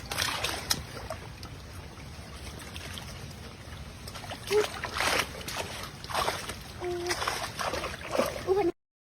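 Water splashing and dripping as hands work through a shallow pond for fish, in short irregular splashes over a steady watery hiss, with a few brief pitched sounds in the second half. The sound cuts off abruptly near the end.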